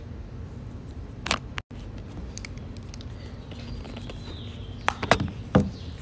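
Short clicks and knocks of makeup items being handled, a few about a second in and a louder cluster near the end, over a steady low room hum.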